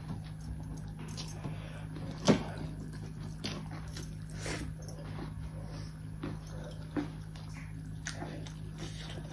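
Close-up eating sounds: chewing and wet mouth smacks as rice and fish are eaten by hand, with fingers scraping and mixing rice on steel plates. A louder click about two seconds in and another near seven seconds stand out, over a steady low hum.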